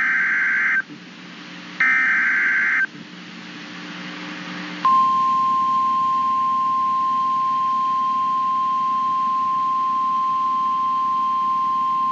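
NOAA Weather Radio emergency alert signal: two short buzzy digital data bursts (SAME header codes), each about a second long, then about five seconds in the steady single-pitch 1050 Hz warning alarm tone that announces a warning message.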